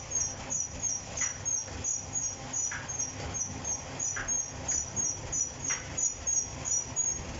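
Roll lamination machine running, with a short high squeak repeating evenly about three times a second and a fainter tick about every second and a half, over a low running hum; the squeaking stops just before the end.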